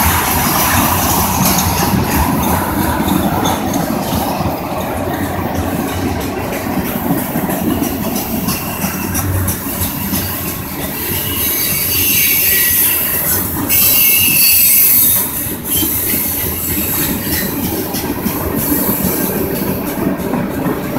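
Freight train cars rolling past close at speed: a loud steady rumble of wheels on rails with clatter and clanking, and some metallic wheel squeal.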